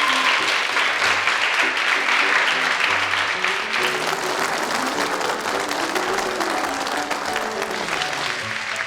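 A crowd applauding, with dense clapping that is loudest in the first few seconds and then eases a little. Background music with short stepped notes runs underneath.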